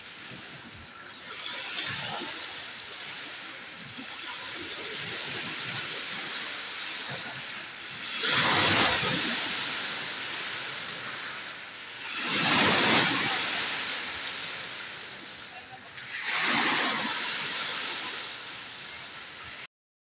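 Small sea waves washing up over a pebble beach, a steady wash broken by three louder surges about four seconds apart in the second half. The sound cuts off suddenly just before the end.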